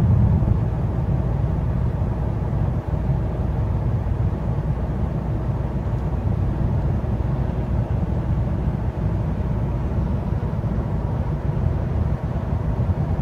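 Steady low rumble of a car on the move: road and engine noise heard from inside the cabin.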